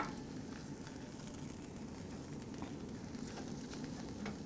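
Seared tomahawk ribeye steaks sizzling steadily and faintly in the hot grill tray.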